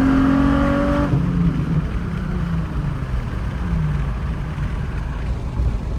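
Nissan 350Z's VQ35DE 3.5-litre V6 held at high revs under acceleration. About a second in the revs drop as the throttle is lifted. The engine then runs on at lower revs over a steady low rumble.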